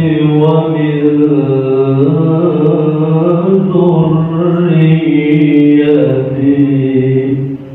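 A solo voice reciting the Qur'an in melodic qiro'ah style, drawing out long, ornamented held notes that rise and fall slowly. The phrase ends about half a second before the close and the voice stops for a breath.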